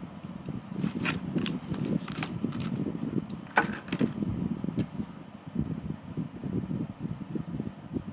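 Thin clear plastic food tray crackling and clicking as a mooncake is lifted out of it: a run of sharp crinkles between about one and five seconds in, over a steady low hum.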